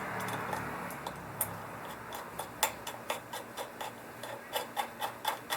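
Hand ratchet clicking in short, quick strokes, a few sharp clicks a second, starting about two seconds in. It is likely tightening a nut on the throttle cable or pedal mounting.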